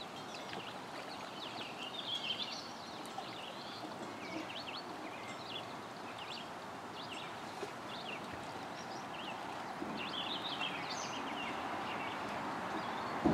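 Small birds chirping in short, high calls, scattered throughout, over a steady outdoor background hiss that grows slightly louder toward the end.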